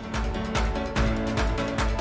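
Theme music with a steady beat, coming in at the start.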